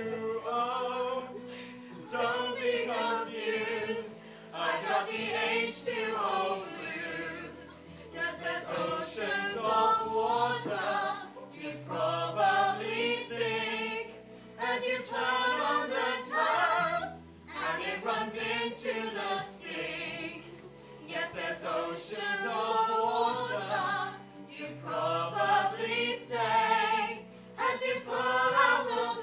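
A group of voices singing a song together in harmony, with sustained low notes underneath and short pauses between phrases.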